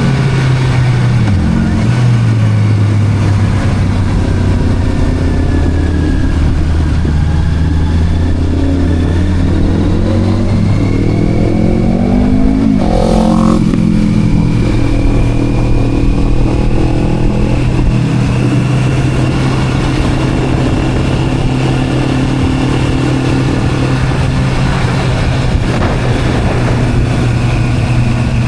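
Motorcycle engine running steadily under way. About halfway through it revs up, climbing in pitch to a peak, then drops back and settles.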